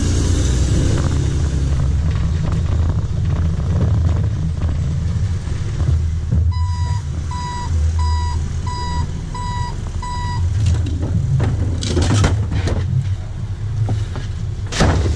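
Rear-loader garbage truck's diesel engine idling with a steady low rumble. About six seconds in, a reversing alarm beeps six times, roughly one and a half beeps a second. A few clattering knocks follow near the end.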